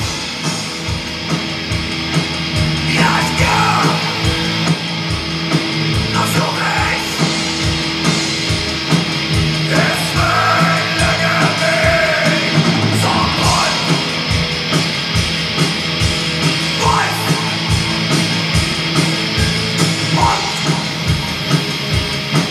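Raw live recording of blackened horror punk playing: distorted guitars and driving drums in a dense wall of sound, with shouted vocals coming in and out.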